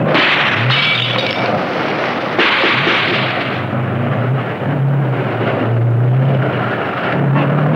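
Tank engine running hard with the grinding clatter of its tracks as it rams and pushes through an iron gate. It is a loud, rough noise under a wavering low engine tone, with sudden jumps about at the start and again about two and a half seconds in.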